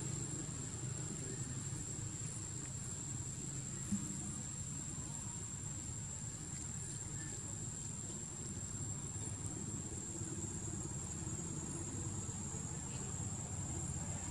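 A steady, high-pitched insect drone over a low, steady rumble, with one brief click about four seconds in.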